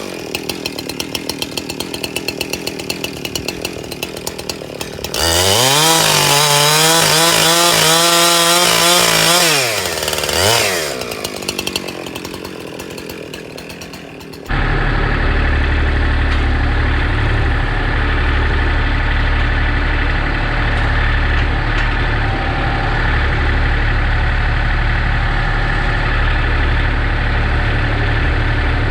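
Chainsaw idling, revved to full throttle for about five seconds, then dropped back to idle. About halfway through it gives way abruptly to the steady low drone of a wood splitter's engine running.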